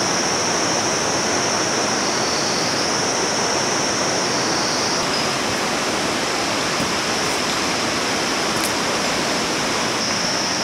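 Fast mountain river rushing over rocks and boulders, a steady white-water roar, with a high, steady shrill note above the rush.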